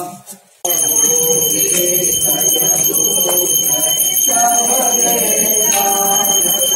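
A bell ringing continuously with steady high tones, starting suddenly about half a second in, with voices underneath.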